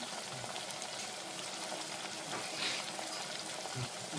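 Onion, red capsicum and capers sizzling in oil in a stainless steel saucepan: a steady frying hiss.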